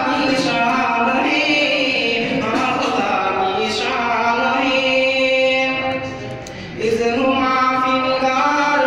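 A man's voice in melodic religious chanting, holding long, drawn-out notes with a short pause for breath about six and a half seconds in.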